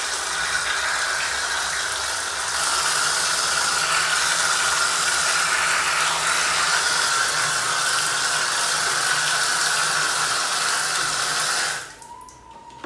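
Water running from a wall tap in a steady stream, splashing over hands and a baby monkey onto a tiled floor. It cuts off suddenly near the end as the tap is turned off.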